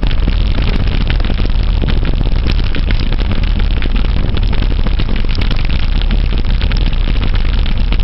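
Mountain bike riding over a rough trail: constant rattling and knocking from the bike and camera mount, over a loud, steady rumble of wind buffeting the microphone.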